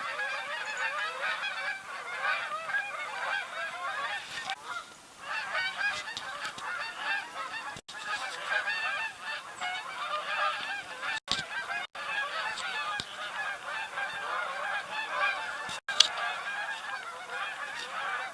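A large flock of geese honking without pause, many calls overlapping into a constant clamour: a flock gathering to migrate south. The sound cuts out for an instant a few times.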